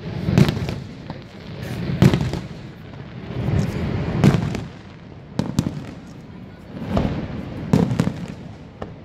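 Aerial firework shells bursting overhead: a string of about seven loud booms, a second or two apart, each trailing off in a low rumble.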